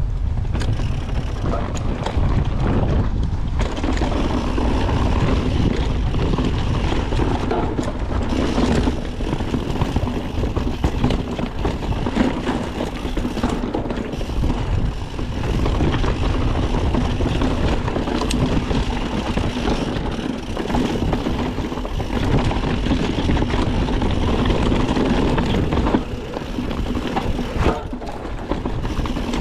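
Mountain bike ridden down a dirt forest singletrack: a continuous rush and rumble from the tyres on the trail, with many small rattles and knocks from the bike.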